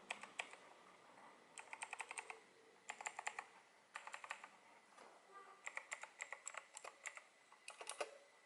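Typing on an Armaggeddon MKA-9C Psychraptor mechanical keyboard with clicky Kailh blue switches. The keystrokes come in quick runs of several clicks, about six bursts with short pauses between.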